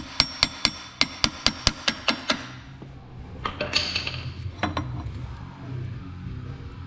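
Hammer blows on metal parts of an ATV's rear axle assembly: a quick run of sharp strikes, about four a second, each with a short metallic ring, stopping a little over two seconds in. A few lighter clanks follow.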